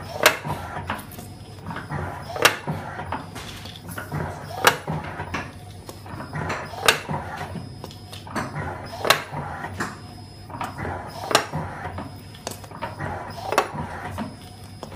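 Automatic batter depositor filling madeleine trays, running with a sharp clack about every two seconds as it cycles through each deposit, over steady machine noise and clatter.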